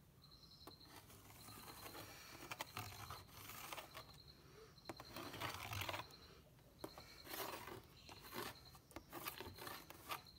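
Pencil scratching on a plastic bucket lid as it traces around a speaker's metal frame, in several scraping strokes.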